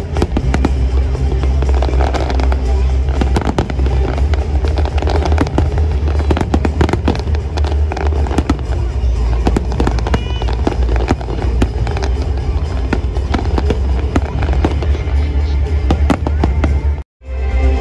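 A dense, continuous barrage of fireworks: rapid bangs and crackling bursts over music with a heavy steady bass. The sound drops out completely for a moment near the end.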